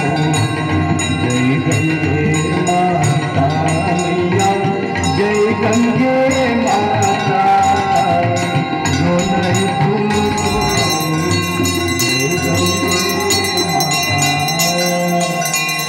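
Ganga Aarti devotional singing, a voice carrying the melody, with bells ringing rapidly alongside. The bell strokes grow denser partway through.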